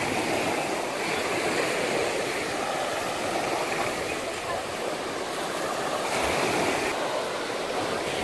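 Small sea waves washing in and out on a pebble beach, a steady rush of surf.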